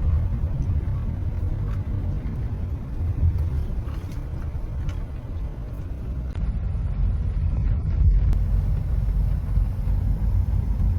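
Wind buffeting the microphone: a loud, uneven low rumble that cuts in and out abruptly.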